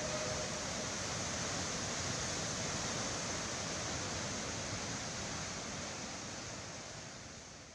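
Steady rushing of a waterfall, fading out near the end.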